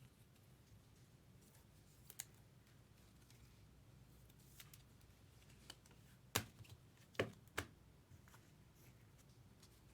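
Mostly quiet, with a few sharp clicks and taps from trading cards being handled and set down: two close together about two seconds in, a louder one past six seconds, and two more just after seven.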